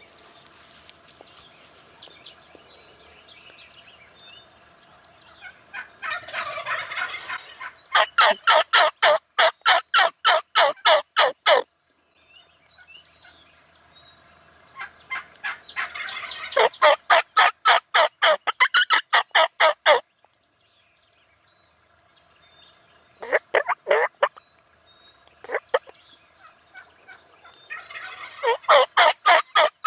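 Turkey calling: loud runs of rapid, evenly spaced notes lasting a few seconds each, first about eight seconds in and repeating several times. Faint songbird chirps come between the runs.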